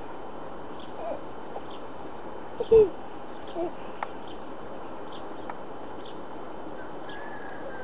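Honeybees humming steadily around an opened hive while comb frames are worked, with a click as a frame is handled about four seconds in. Short, low bird calls sound over it several times, the loudest just under three seconds in.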